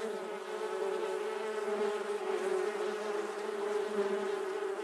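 Bee buzzing in a steady, even drone.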